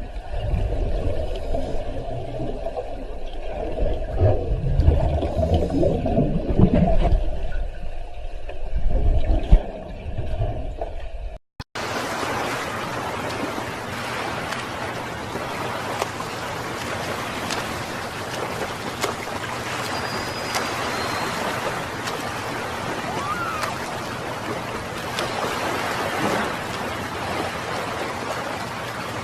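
Water noise: a loud, uneven low rumbling and churning of moving water for about eleven seconds, then, after a cut, a steady hiss of water with a few faint high chirps.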